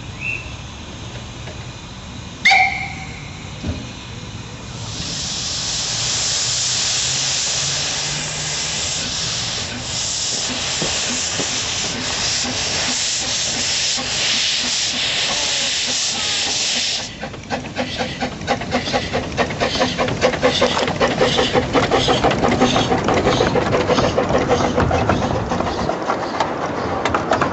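15-inch gauge miniature steam locomotive: a short, loud whistle blast a couple of seconds in, then a steady hiss of escaping steam for about twelve seconds that cuts off suddenly. After that come quick rhythmic beats of the moving train that grow louder.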